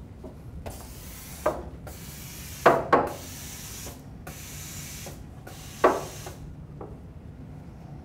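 A steel milk jug and a ceramic espresso cup are handled at the machine's drip tray and counter: four sharp clinks, two of them close together near the middle, with stretches of rasping, hissy rubbing noise between them.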